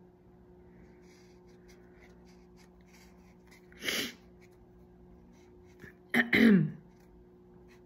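A person sneezes: a sharp breath in about four seconds in, then a loud sneeze with a sudden onset and a falling voiced tail a little after six seconds.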